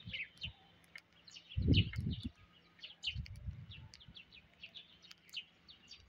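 Many short, high chirps from a feeding flock of rose-ringed parakeets and house sparrows, with two dull low thumps about two and three seconds in.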